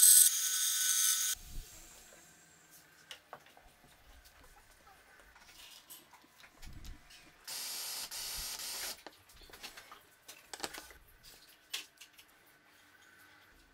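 Band saw cutting through a wooden block, stopping about a second and a half in. Then quiet taps and wood-handling knocks, with a cordless drill running for about a second and a half near the middle.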